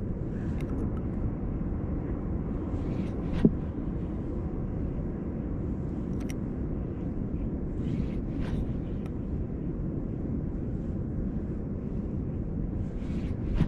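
Steady low outdoor rumble with no clear pitch, broken by a few isolated sharp clicks, the loudest about three and a half seconds in.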